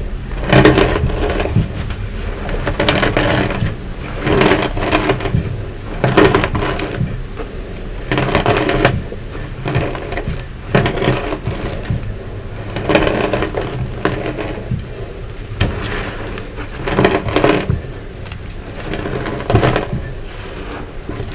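Steel rolling pin pressed and rolled back and forth over crushed Nexo chalk, crunching and scraping as it grinds the lumps into powder. The crunches come in strokes roughly every two seconds.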